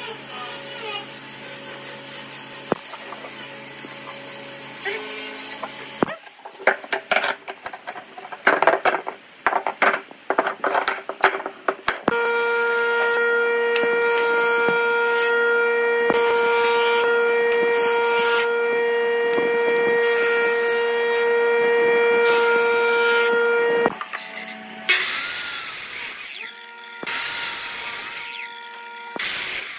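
A jointer runs with a steady, even whine for about twelve seconds as a glued-up hardwood block is fed across its cutterhead. This follows a few seconds of knocking and clatter. Near the end, a miter saw cuts through the block twice in two short loud bursts, and the blade winds down after each one.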